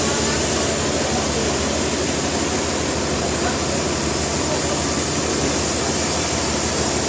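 Sawmill machinery running steadily: a loud, even mechanical din with a low engine hum beneath it.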